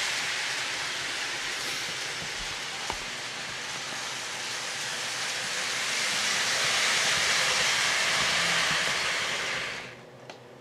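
O-gauge model train rolling on three-rail track: a steady rushing hiss of wheels and motor that swells as the train nears and drops off abruptly just before the ten-second mark, as it comes to a stop.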